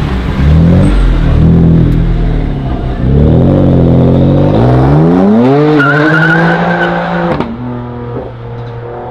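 A high-performance car engine accelerating hard, its pitch climbing in several pulls. The longest pull ends in a sharp cut-off about seven seconds in, and the engine then settles to a lower steady note before rising again near the end.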